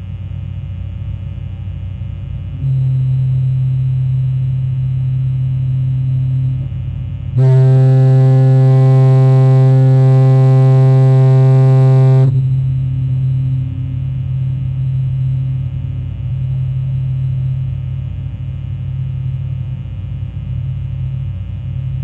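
Foghorn sounding a low, steady tone. It grows louder about three seconds in, gives one full, loud blast of about five seconds near the middle, then falls back to a softer steady tone.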